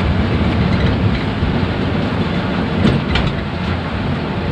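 Steady running noise inside an intercity bus's cabin in heavy rain: engine and tyre rumble on a wet road, with a brief cluster of clicks about three seconds in.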